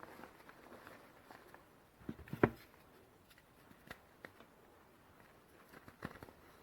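Reformed gym chalk being crushed and crumbled: scattered soft crunches and snaps, with a cluster of sharper crunches about two seconds in, the loudest at about two and a half seconds, and a few more near the end.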